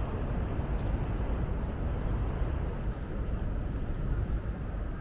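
Steady city street noise, mainly a low rumble of road traffic.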